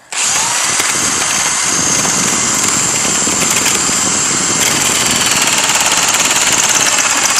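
Electric drill starting abruptly and running steadily, with a constant high whine, as its bit bores into a Master Lock padlock held in a vise.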